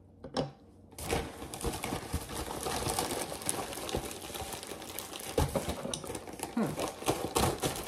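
Plastic packaging crinkling and rustling as a package is handled and opened, starting about a second in, dense with small crackles and clicks.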